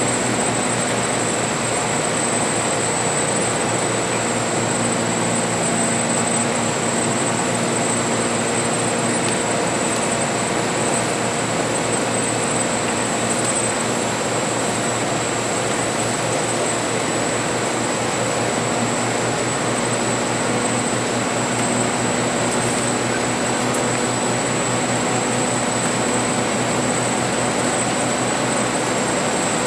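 Steady cabin noise inside a moving Volvo B10BLE CNG bus: the engine running with tyre and road rumble, a constant level throughout, and a steady high-pitched whine.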